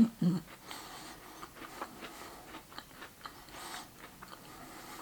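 A person chewing crunchy chocolate-backed biscuit cookies, with a few scattered crunches and mouth clicks.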